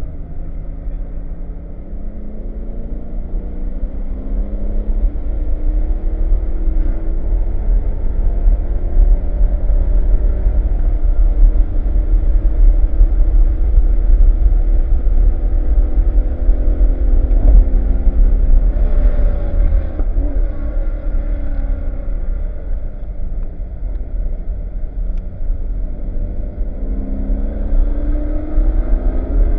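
BMW E92 M3's V8 engine pulling hard through the gears, its pitch climbing and dropping again and again as it shifts and slows, over a heavy low rumble.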